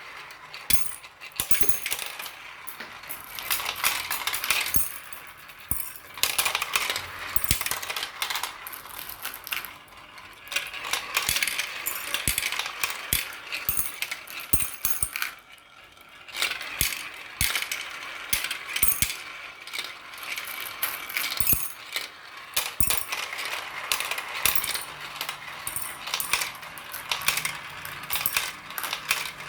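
Many marbles rolling and clattering down a marble run track: a dense, irregular stream of clicks and clacks, easing off briefly about halfway through.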